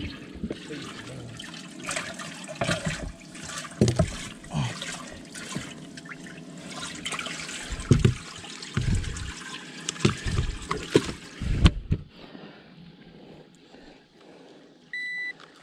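Water running and splashing, with several loud thumps through it; the running water cuts off suddenly about twelve seconds in. A short electronic beep follows near the end.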